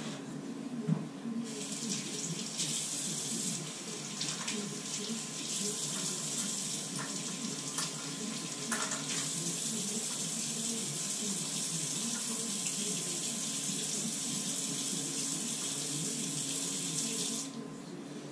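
Bathroom sink faucet running into the basin and splashing as a shower head is rinsed clean of pipe dope. The water comes on about a second and a half in, after a short knock, and shuts off near the end.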